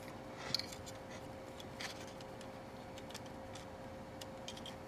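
Faint clicks and taps of hard plastic as the beam scythe handle of a Master Grade Gundam Deathscythe model kit is worked into the connector on its backpack, over a faint steady hum.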